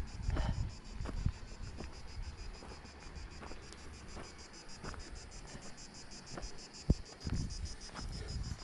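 Insects chirping in a fast, even pulse, high in pitch, over scattered footsteps on a dry dirt path, with a low rumble on the microphone near the start and a single sharp knock about seven seconds in.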